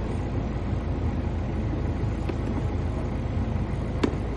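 Steady low rumble throughout, with a few faint knocks and one sharp click about four seconds in as a plastic scoop knocks against a plastic bucket while scooping out thick paste.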